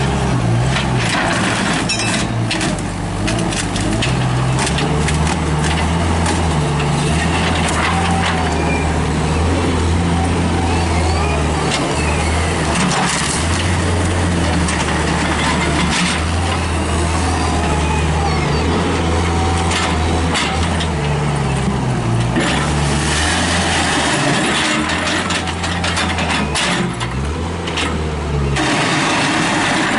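Diesel engines of a rear-loader garbage truck and a small grapple wheel loader running, their pitch stepping up and down as they work. Scattered clanks and knocks of bulk trash being handled.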